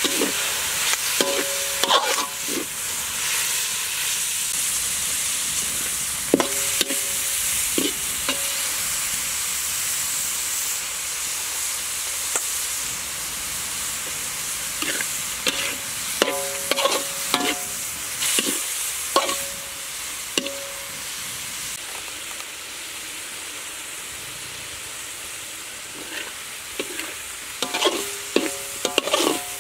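Chopped pork sizzling as it fries in a metal wok, with a metal spatula scraping and clinking against the pan in several bouts of stirring. The sizzle eases a little in the second half.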